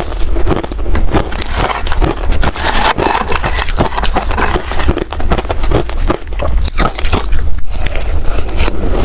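Ice being bitten and crunched between the teeth close to the microphone: a dense, continuous run of loud cracks and crunches.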